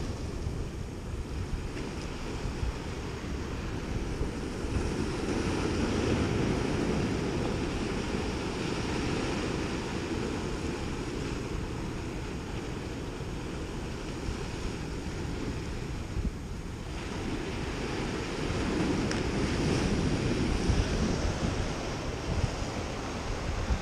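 Ocean surf washing and breaking against rocks, swelling louder twice as waves come in, with wind buffeting the microphone.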